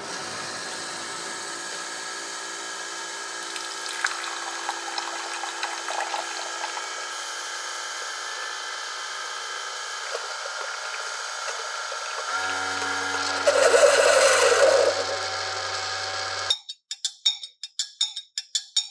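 Keurig single-serve coffee maker brewing chai into a glass mug: a steady whir of the machine and the stream of liquid. A low hum and a louder burst of hiss come near the end of the brew, and then it stops suddenly. A metal spoon then clinks rapidly against the glass mug as the drink is stirred.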